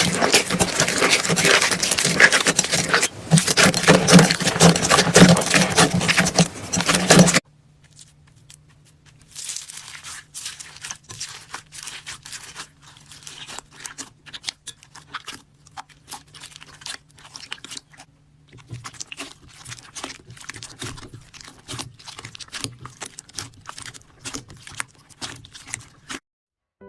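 Slime being squeezed and worked by hand: dense, loud crackling and crunching for about seven seconds. It cuts off suddenly to quieter, scattered clicks and pops over a faint low hum.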